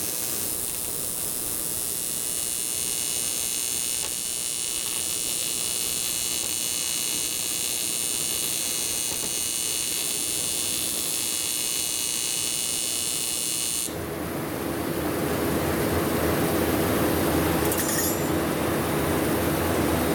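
AC TIG welding arc buzzing steadily on an aluminum Harley-Davidson panhead cylinder head. About two-thirds of the way through the arc cuts off suddenly, and a louder, steady rushing noise carries on.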